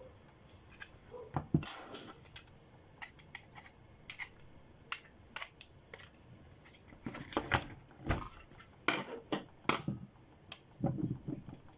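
Hands handling and working on a drone battery pack: irregular clicks, taps and short scrapes, busiest about a second and a half in and again from about seven seconds.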